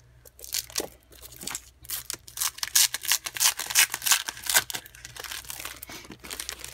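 Clear plastic packaging crinkling and 12-by-12 scrapbook paper sheets rustling as they are handled and slid about, a run of irregular crackles that is busiest and loudest around the middle.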